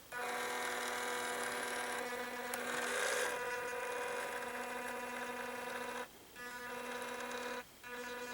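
The electric motor and gear drivetrain of an FMS 1/18-scale Toyota FJ Cruiser RC crawler whining steadily as it drives. It stops briefly about six seconds in and again near the end. The drivetrain is very noisy.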